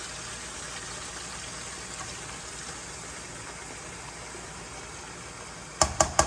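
Pork cooking in a pot with a steady sizzle, as soy sauce goes in. Near the end come four quick, sharp knocks.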